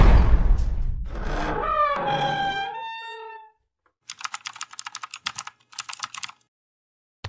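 Intro sound effects: a loud boom that fades out over about three seconds, with a pitched cry sliding downward over it about two seconds in. Then about two seconds of rapid keyboard-typing clicks in two runs, a typewriter-style effect for on-screen text appearing.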